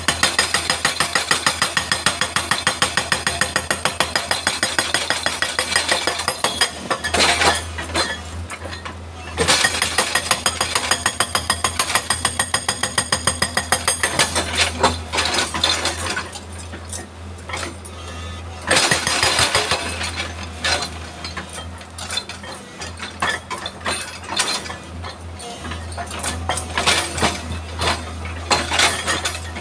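Hydraulic rock breaker on a Hitachi excavator hammering rock in rapid, evenly spaced blows, in spells that stop and restart, over the steady low running of the excavator's engine.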